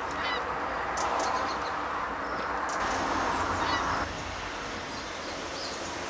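A flock of geese flying over in a skein, many honking calls overlapping into a chorus that cuts off about four seconds in.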